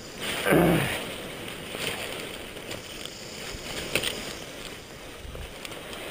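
Rustling and handling noise of a paraglider's nylon canopy and lines in dry brush, with scattered clicks and snaps. About half a second in there is a loud, short sound that falls in pitch.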